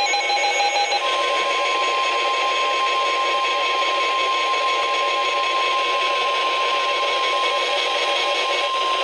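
NOAA Weather Radio 1050 Hz warning alarm tone: one steady high beep that starts about a second in and holds for about eight seconds over receiver hiss. It signals that a warning message is about to be read. Just before it comes a brief stutter of short pulsed tones.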